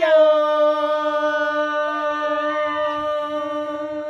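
Unaccompanied Quechua harawi for the maize sowing: a voice holds one long high note steady after a quick drop in pitch at the start.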